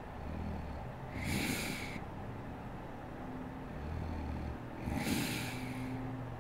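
A sleeping woman snoring: two breaths, each a low snore followed by a loud, breathy, hissing burst of air, about four seconds apart.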